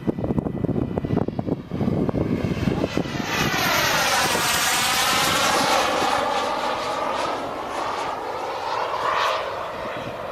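Turbine engine of a Turbinator RC sport jet rushing past close by. The whooshing whine builds from about three seconds in, is loudest a second or so later, then slowly fades as the jet moves away. Wind buffets the microphone in the first couple of seconds.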